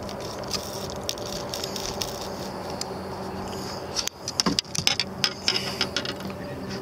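Handling noise from a handheld camera being jostled, with clicks, knocks and rattling that bunch together about four to six seconds in. Under it runs a steady low hum.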